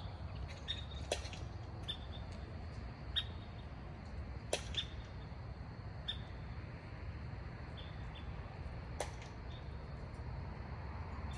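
Night-time outdoor ambience: a steady low rumble, with short, sharp, high chirps every second or two.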